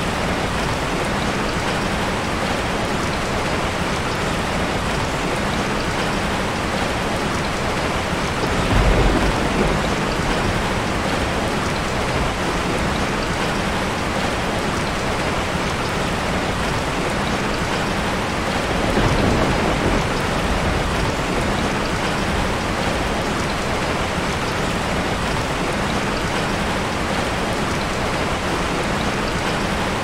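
Steady rain falling, an even hiss throughout, with two brief low rumbles that swell up about nine and nineteen seconds in.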